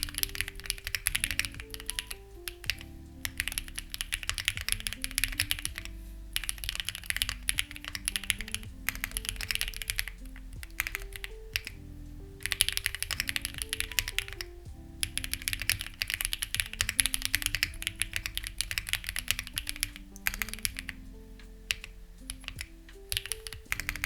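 Typing on a Lucky65 v2 mechanical keyboard with stock, unlubricated HMX Ziwei switches and CMK-style keycaps: fast runs of key clacks in bursts with brief pauses. Soft background music with low held notes runs underneath.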